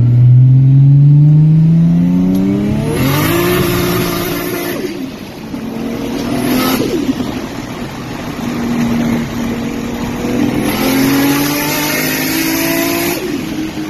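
Toyota 1JZ straight-six in a JZX100 Chaser pulling hard through the gears. The revs climb steadily, drop at a shift about five seconds in, and climb again; there is a short burst near seven seconds and a second long pull that falls away near the end.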